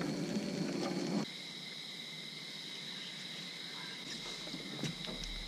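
Crickets trilling steadily. For about the first second there is also a louder low rustle, which stops abruptly, and a couple of faint clicks come near the end.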